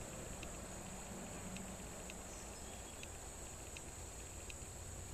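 Insects droning as a steady high-pitched buzz, with faint ticks about twice a second.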